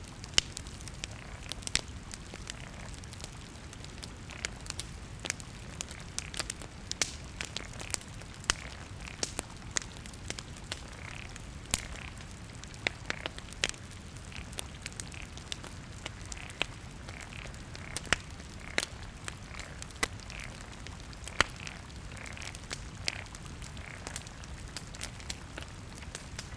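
Wood bonfire burning and crackling, with sharp irregular pops several times a second over a low steady rumble of the flames.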